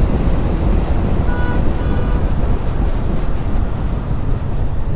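Motorcycle riding at highway speed: steady wind rush on the microphone over the engine and road noise. Two short faint beeps sound between one and two seconds in.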